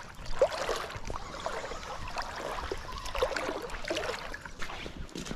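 Spinning reel being cranked and a lure cast out over the river, with small clicks of reel and line handling against light water noise.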